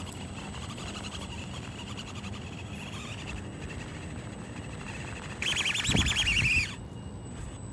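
Axial SCX24 RC crawler's electric motor and gearbox whining faintly and steadily as it crawls. Near the end it rises for about a second and a half to a louder whine that wavers in pitch.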